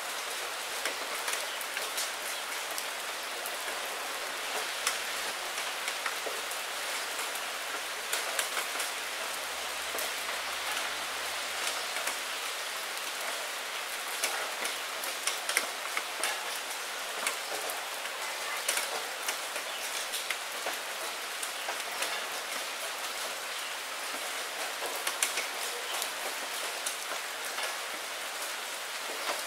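Steady rain falling on window glass: a constant hiss dotted with many small, sharp taps of single drops striking the pane.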